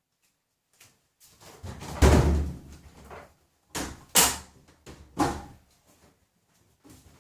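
A string of separate thumps and knocks, the loudest and deepest about two seconds in, with further sharp knocks around four and five seconds in.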